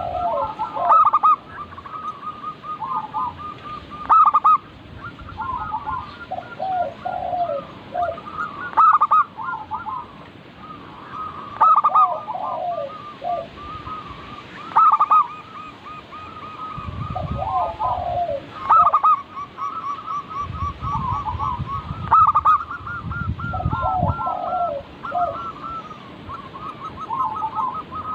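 Zebra doves (perkutut) cooing: repeated phrases of quick staccato coos, a loud phrase every three to four seconds with softer phrases from other birds overlapping between them.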